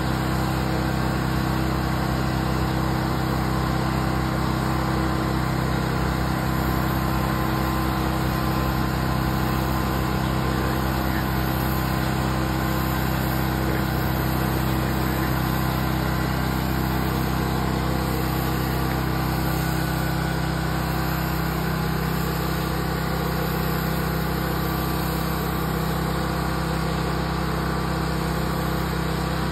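Pressure washer running steadily, its engine going at a constant pitch under the even hiss of the wand's water jet on concrete.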